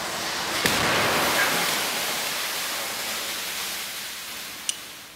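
Crash-test collision of a truck cab: a sudden rush of noise with a sharp crack under a second in, fading slowly away as a long hiss.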